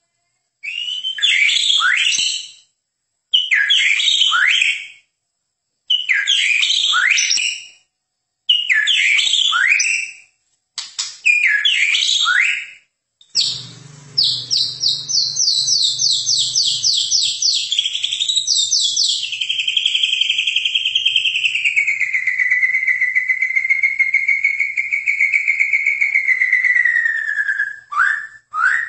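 Medan-type white-rumped shama (murai batu) singing. First come five short, loud whistled phrases with brief gaps between them. About halfway in, the song turns into a long, fast run of repeated notes that slowly drops in pitch, the rapid chattering song that fanciers call gacor.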